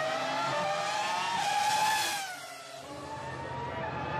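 Race car engine sound effect laid over the diecast car's run, revving high with its pitch climbing; about two seconds in it dips and drops in pitch, then comes back at a steady high pitch.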